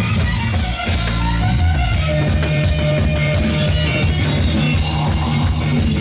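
Loud amplified music with a driving drum beat and guitar.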